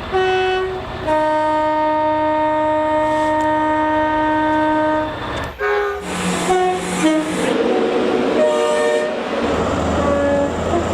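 Train horn sounding two tones: a short higher note, then a long, steady lower note held for about four seconds. Past the middle come a string of short toots of changing pitch over the rumble and rail noise of a moving train.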